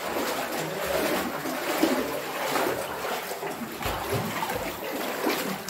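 Water trickling and splashing inside a cave, a steady wet hiss with a few small knocks.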